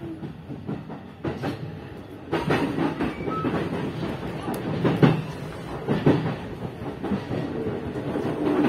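JR East E233 series electric train running on the rails, heard from inside the driver's cab: a steady rumble with irregular wheel clacks over rail joints and points, louder from about two seconds in.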